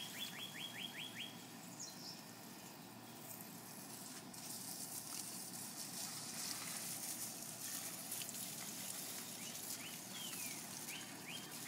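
Garden hose spraying water onto plants, a steady hiss that grows louder about four seconds in. A songbird sings a quick run of repeated whistled notes at the start and again near the end.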